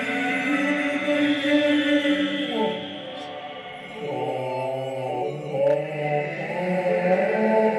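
Choir-like vocal chanting: several voices hold sustained chords, sliding and wavering in pitch, with a brief dip in level around three to four seconds in.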